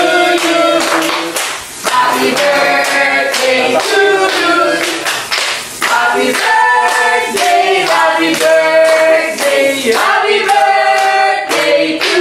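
Several voices singing together, with hand clapping.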